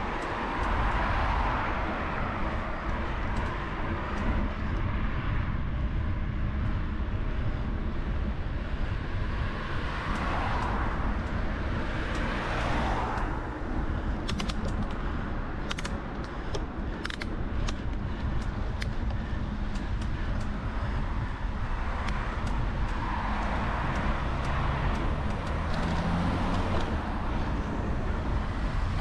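Road traffic: cars passing, their noise swelling and fading several times over a steady low rumble. A quick run of sharp clicks comes about halfway through.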